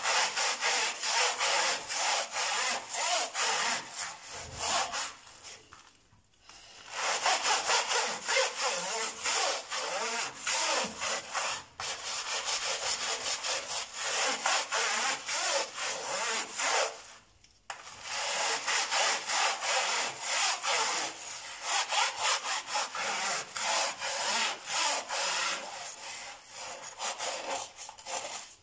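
Hand brush scrubbing a metal-mesh range-hood grease filter, rapid back-and-forth rasping strokes of bristles on the mesh, with two short pauses partway through.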